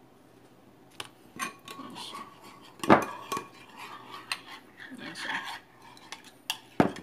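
Metal spoon stirring a marinade in a glass mixing bowl, clinking and scraping against the glass, with a brief ringing note. The sharpest clinks come about three seconds in and again near the end.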